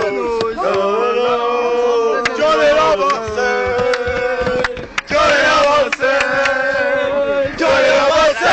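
A group of male football supporters singing a chant together inside a coach, loudly and with long held notes. The singing breaks off briefly about five seconds in, and a few sharp knocks sound through it.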